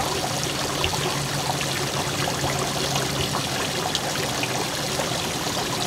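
Water trickling and splashing steadily into a boat's fish wet well, with a low steady hum beneath.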